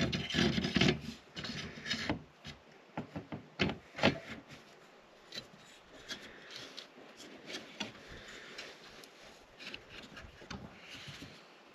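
Handling of a roof escape hatch's metal lid, frame and lift arm while a homemade washer roller is fitted into the arm's track. Rubbing and scraping for the first couple of seconds, then scattered sharp clicks and taps, the loudest about four seconds in.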